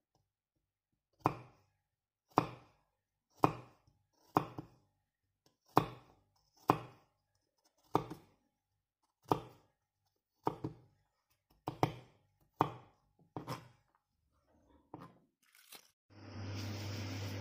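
A kitchen knife slicing garlic cloves on a wooden cutting board, with about a dozen separate chops at roughly one a second. Near the end a steady hum with hiss takes over.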